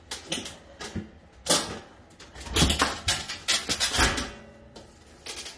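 The removable bottom panel on the floor of a Frigidaire Gallery oven being pushed and seated into place: a string of knocks, clunks and scrapes, thickest in the middle.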